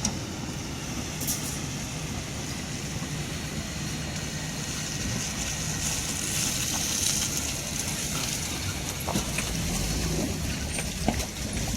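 Vehicle engine running steadily under a broad hiss, with a few short knocks.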